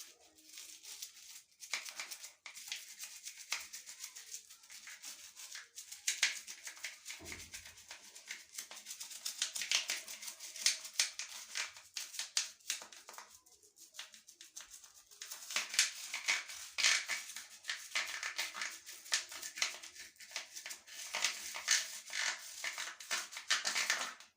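Brush scrubbing the dirty edges of an electric shower head's plastic parts: a fast, scratchy rasping of bristles that keeps on with short pauses, with one dull knock about seven seconds in.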